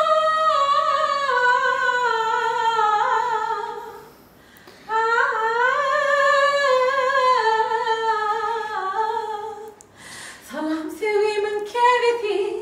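A woman singing unaccompanied: two long, drawn-out phrases with slowly wavering pitch and a short break between them, then shorter notes near the end.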